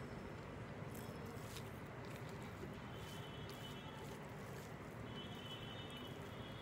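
Fingers mixing rice and curry on a plate by hand, a few soft clicks over a steady background hum.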